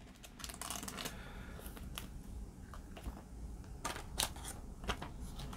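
Faint rustling and scattered light clicks of a trading card and a thin clear plastic sleeve being handled as the card is slid into the sleeve and set down.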